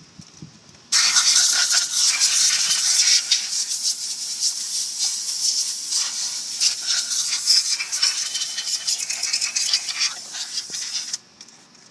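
Compressed-air blow gun hissing as it blasts dust out of a scooter's open CVT housing. The blast starts suddenly about a second in and cuts off near the end, and its hiss wavers as the nozzle moves around the case.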